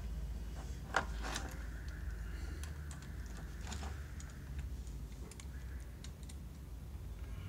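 Small hard-plastic parts of a Transformers toy car clicking and tapping as a loose upgrade piece is handled and pressed into place. Scattered light clicks, the sharpest about a second in, over a low steady hum.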